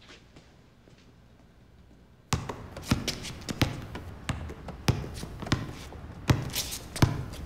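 Quiet room tone, then, after an abrupt change about two seconds in, a run of sharp taps or knocks about every two-thirds of a second over louder background noise.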